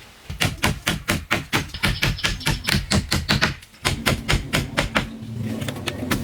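A fast run of sharp taps, about five a second, with a brief pause just before the four-second mark, then more taps. A steady low hum sets in near the end.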